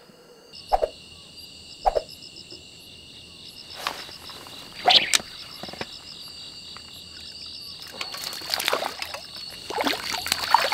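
Crickets chirring steadily in a high, evenly pulsing trill from about half a second in. Over it come several sharp knocks and splashy handling sounds close by, the loudest about five seconds in, with a busier cluster near the end.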